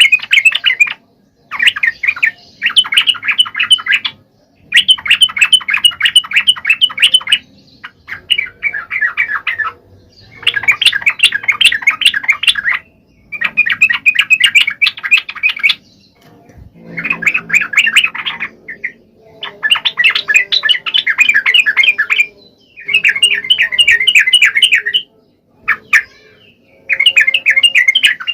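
Yellow-vented bulbul (trucukan) singing in a series of rapid, chattering phrases, each a second or two long, with short pauses between them.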